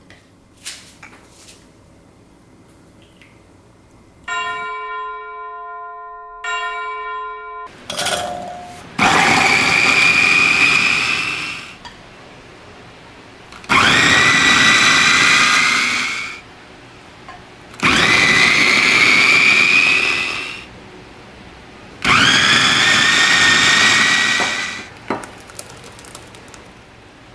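Electric food chopper pulsed four times, each run about three seconds long with a motor whine that rises as it spins up, grinding garlic, onion, red paprika and cherry tomatoes into a fine purée.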